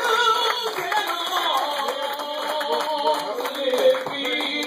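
Gospel praise team singing into microphones, with hands clapping along.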